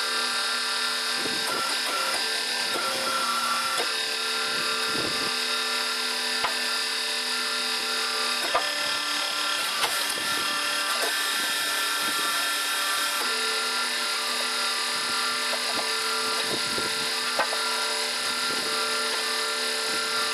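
Electric-motor hydraulic log splitter running, a steady hum from the motor and pump that changes tone twice. A few sharp cracks sound as a large log is split on the four-way wedge.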